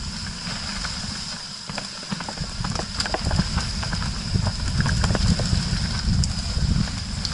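A Canyon Strive enduro mountain bike rolling down a dirt and stone trail, heard from an action camera on the bike or rider. The tyres rumble over the ground, with frequent sharp clicks and rattles from the bike over rocks and roots.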